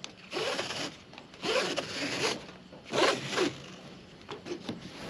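Nylon webbing strap being pulled through a cam buckle: three drawn-out rubbing pulls in the first three seconds or so, then a few light taps near the end.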